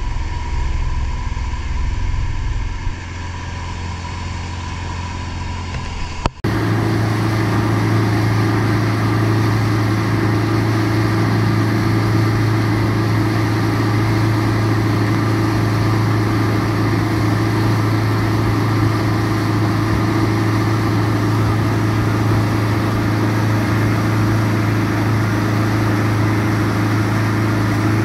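Mercury outboard motor running steadily at speed, with the rush of wind and water over it. About six seconds in the sound changes abruptly to a stronger, steady engine drone.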